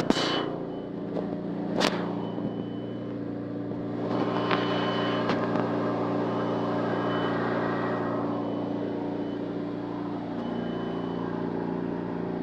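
Ice cream machine running with its replacement compressor, a steady low hum, while a high electronic beep sounds roughly every two seconds. A few sharp clicks come in the first half.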